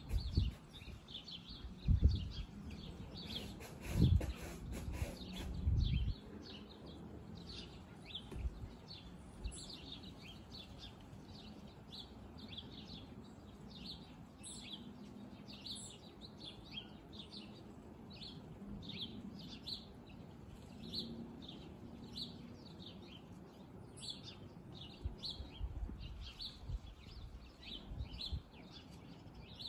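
Small birds chirping repeatedly with short, high calls. Low gusts of wind buffet the microphone, loudest in the first six seconds and again near the end.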